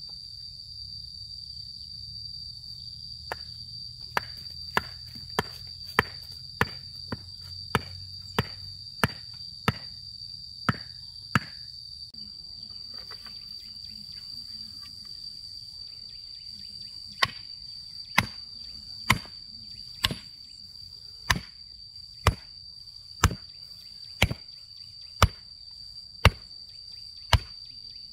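Regular chopping strikes of a hand tool, about one a second, in two runs with a pause of several seconds between. Insects keep up a steady high shrill throughout.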